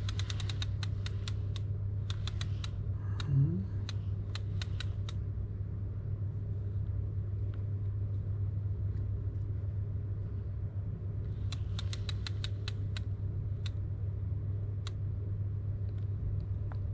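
Shimano Plays 3000 electric fishing reel being wound by hand to reel line back in, with runs of quick clicks from the reel in the first few seconds and again past the middle, over a steady low hum.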